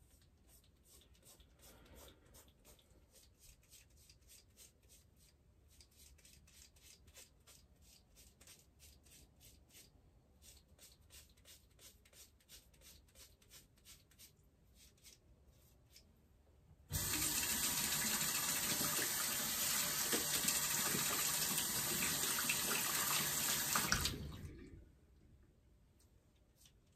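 A handheld razor scraping through a month-old beard in short, quick strokes, a couple a second. About two-thirds of the way through, a bathroom sink tap is turned on and runs loudly for about seven seconds, then is shut off.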